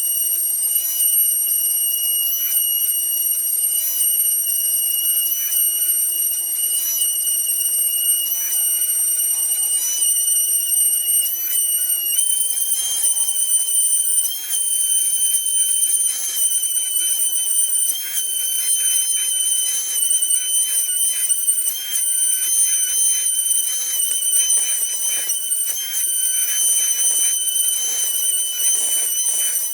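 Homemade CNC router running a carving job in wood: a steady high-pitched machine whine that steps up slightly in pitch about twelve seconds in, with an irregular crackle of the bit cutting.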